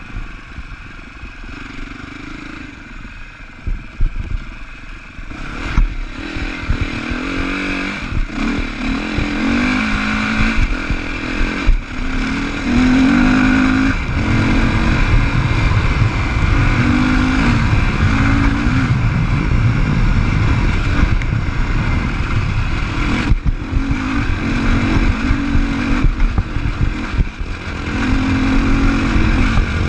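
Sherco 450 SEF-R's single-cylinder four-stroke engine, running at low revs for the first few seconds, then pulling harder from about six seconds in, its revs rising and falling again and again as the bike is ridden, with a few sharp knocks along the way.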